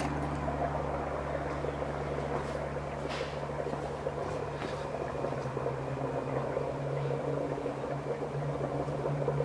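Dry ice bubbling and fizzing in a bowl of soapy water as fog-filled bubbles swell up, with a few faint pops. A steady low hum runs underneath.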